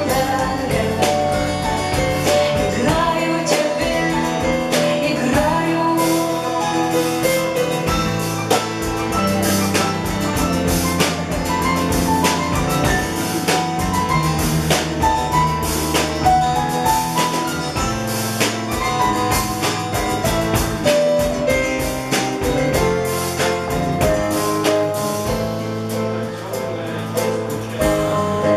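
Live band playing a song: drum kit, electric bass, acoustic guitar and keyboard, with a woman singing. The drums fall away near the end.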